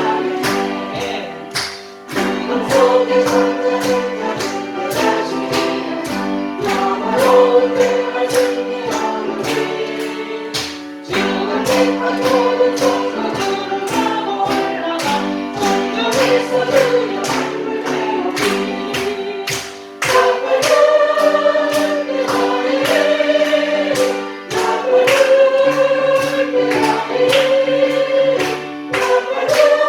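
A choir singing a gospel hymn over instrumental accompaniment with a steady beat.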